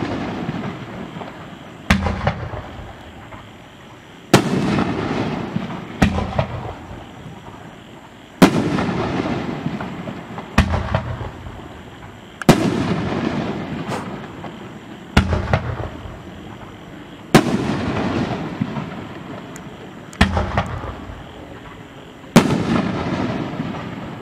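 A 3-inch, 500-gram Dominator Nishiki Kamuro Super Finale fireworks cake firing shot after shot: loud bangs come about every two seconds as tubes fire and shells break overhead. Each bang trails off into a fading crackle and echo.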